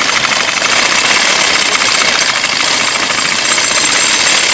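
Horse-drawn mowing machine cutting standing wheat, its reciprocating cutter bar chattering steadily and fast.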